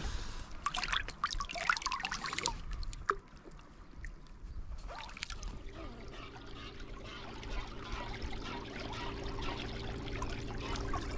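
Water splashing close by for a couple of seconds, then trickling and dripping over a faint steady hum.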